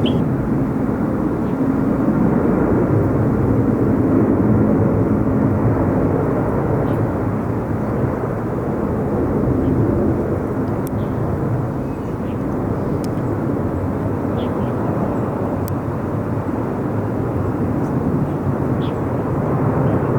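Jet airliner engines giving a loud, steady rumble that eases slightly midway and builds again near the end.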